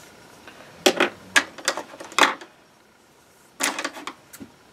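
Crochet hook and small craft tools handled and set down on a tabletop: a run of sharp clicks and taps about a second in, then a second short cluster near the end.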